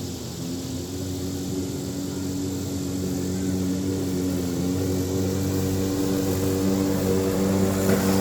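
DeWalt 20V battery-powered lawn mower running under load: a steady electric motor and blade hum with small shifts in pitch, getting a little louder near the end.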